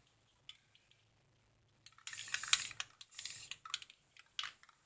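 Short hissing spurts and scattered light clicks from an aerosol spray-paint can touching up a missed spot. They start about two seconds in and stop just before the end.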